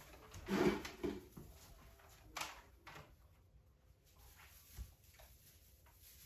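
Quiet handling noises of an artificial Christmas tree being strung with lights: plastic branches rustling and the light string being pulled through them. There is a short louder rustle about half a second in, a couple of sharp clicks, and a soft thump a little past the middle.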